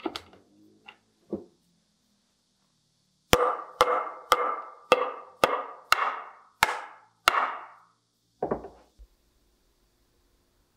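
A mallet knocking a hardwood dovetail joint together: nine sharp blows, about two a second, each leaving a short woody ring. A few lighter knocks come before and after as the boards are handled.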